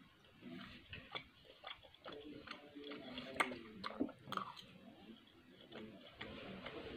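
A person eating steak, chewing wetly, with scattered sharp clicks from the chewing and from a steel knife and fork touching a ceramic plate.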